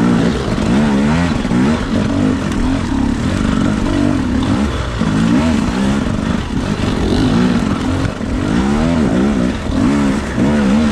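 Enduro dirt bike engine revving up and down in short repeated bursts of throttle, its pitch rising and falling about once a second as the bike climbs a rocky trail.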